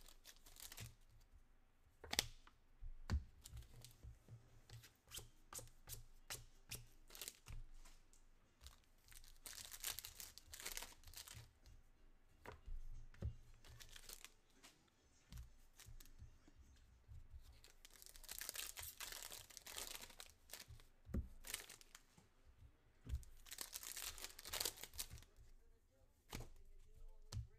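Foil football-card pack wrappers being torn open and crinkled, in several separate bursts, with short taps and clicks from the cards being handled in between.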